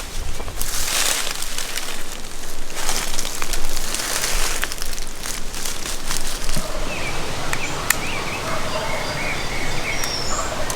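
Gusty wind and rustling through the woods, with scattered sharp ticks. From about two-thirds of the way through come faint calls of a wild turkey tom gobbling at a distance, along with small bird chirps.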